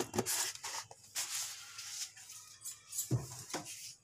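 Rustling, crinkling handling noises, with a single dull knock about three seconds in.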